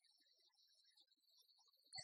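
Near silence: a faint steady high-pitched whine and hiss, with one short click near the end.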